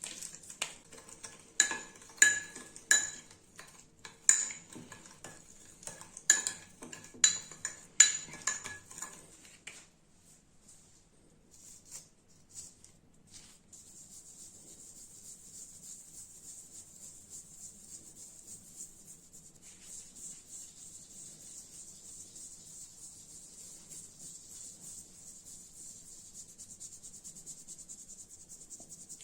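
A spoon clinking against a small dish, about a dozen sharp, ringing taps over the first ten seconds. After that comes a steady, faint high hiss that lasts to the end.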